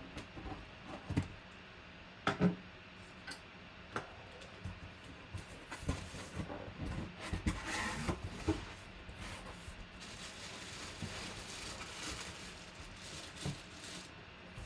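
A large cardboard shipping box being handled and cut open with a knife: scattered knocks and taps on the cardboard, with scraping and rustling busiest about halfway through.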